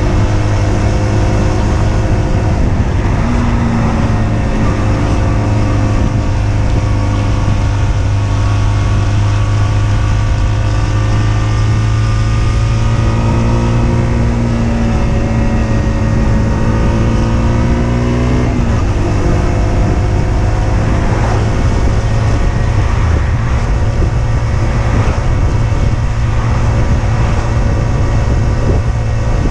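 Husqvarna Svartpilen 125's single-cylinder engine running as the motorcycle rides along, its pitch slowly rising and falling with the throttle. About two-thirds of the way through, the steady tone breaks off into a rougher, uneven sound.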